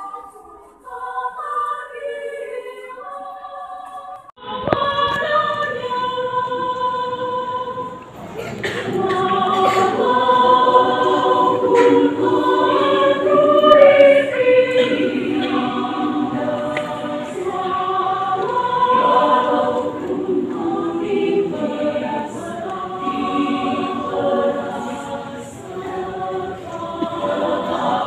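Women's choir singing in parts. The first few seconds are a quieter, thinner line; about four seconds in the full choir comes in, and it grows louder about eight seconds in.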